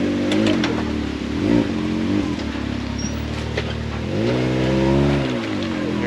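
Can-Am X3 side-by-side's turbocharged three-cylinder engine revving up and down in short blips as it crawls up a rocky waterfall ledge, with one longer, higher rev about four seconds in.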